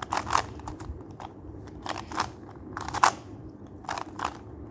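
Plastic skewb puzzle being twisted by hand: a string of short clacks and rattles at irregular spacing as its corner pieces turn.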